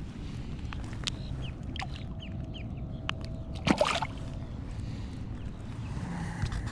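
A bass dropped back into the pond at the bank: one short, loud splash a little under four seconds in.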